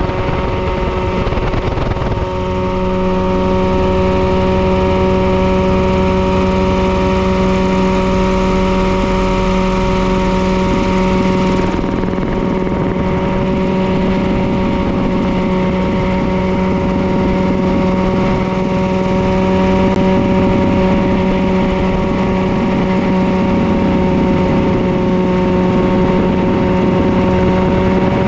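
Mirocopter SCH-2A ultralight coaxial helicopter in cruise flight, its engine and rotors running at a steady, unchanging pitch, heard from the open seat.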